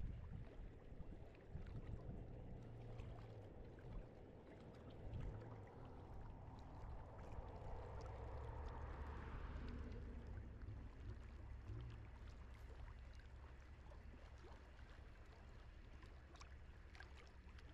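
Faint low rumble of wind on the microphone, with soft water sounds that swell for a few seconds midway and scattered small clicks.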